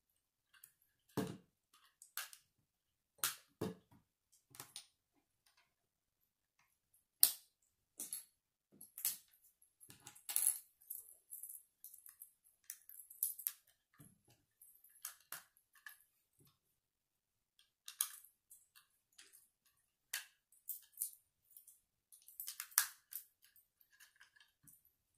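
Plastic LEGO bricks being handled and pressed together: irregular small clicks and snaps, with a few sharper ones.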